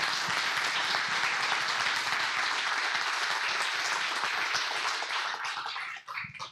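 Congregation applauding in welcome, a dense steady round of clapping that dies away about six seconds in.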